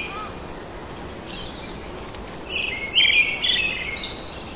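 Birds chirping in short runs of quick, high notes, twice, over a steady background hiss.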